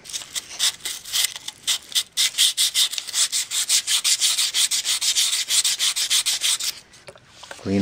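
Emery cloth rubbed back and forth by hand around the metal shaft end of a Rockwell RC-33 planer in quick, even strokes, lightly cleaning off a burr that is catching the gear. The rubbing stops near the end.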